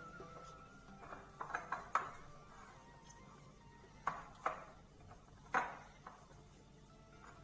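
Bread dough being kneaded and mixed by hand in a metal bowl on a stone countertop. The bowl gives sharp knocks and clanks: a quick cluster about a second in, then single ones around four and five and a half seconds.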